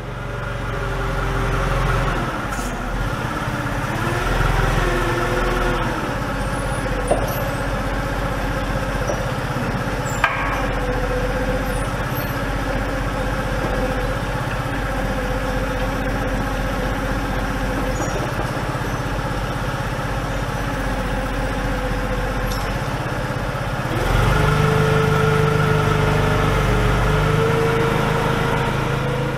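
An engine running steadily, its pitch wavering a few times early on, then stepping up louder about four-fifths of the way through, with a whine-like tone that slowly rises.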